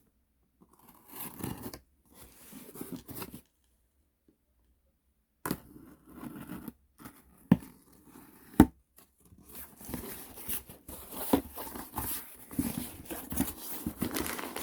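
Packaging being opened and handled: tearing, rustling and crinkling, with two sharp snaps about halfway through, the loudest sounds, and steadier crinkling after them.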